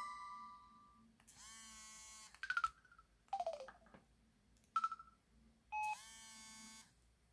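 Samsung Anycall SPH-V9000 mobile phone playing its built-in electronic sound effects: after the last notes of a ringtone die away, a buzzy tone about a second long, a quick chirp, a falling sweep, a short blip and a second buzzy tone near the end.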